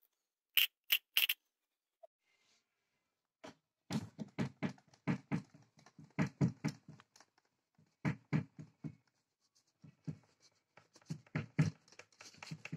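Cardboard-box seismograph model being shaken on a table: a run of irregular, rapid knocks and rattles from the box, with paper scraping under the pen, after three short sharp clicks about a second in.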